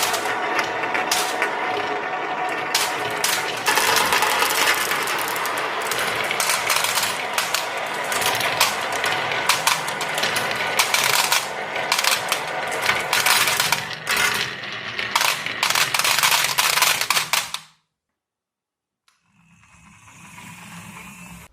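Many marbles rolling and clattering down a rain-gutter and wooden-rail marble run, a dense stream of clicks and knocks over a steady rolling hum. It cuts off suddenly about eighteen seconds in, and after a second or so of silence a fainter rolling sound starts.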